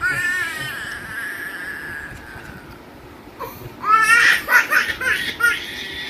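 Toddler crying: a long wail that slowly trails off, a lull, then a run of short broken sobs about four seconds in.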